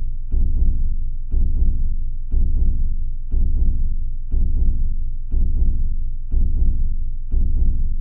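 Slow heartbeat: a steady double thump (lub-dub) about once a second, eight beats in all.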